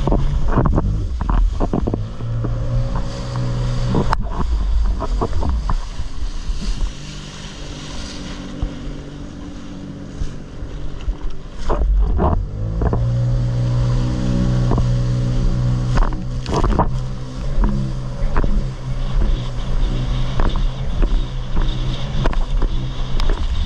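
Jet ski engine running at speed over choppy sea. Its pitch rises as it opens up about two seconds in and again about twelve seconds in, with a quieter stretch in between. Sharp slaps of the hull and spray sound over it, and wind buffets the microphone.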